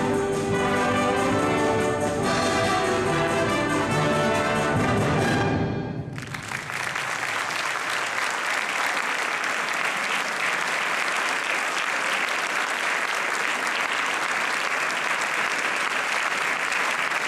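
A concert wind band plays the last bars of a piece, ending on a held chord that dies away about six seconds in. The audience then breaks into steady applause.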